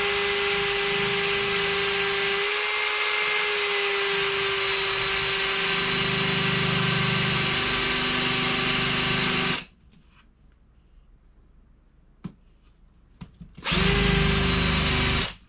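Electric drill spinning a roll-crimp tool against a shotgun shell's hull, warming and forming a roll crimp: a steady motor whine for about nine and a half seconds that then stops, with a few small clicks in the pause, before the drill runs again briefly near the end.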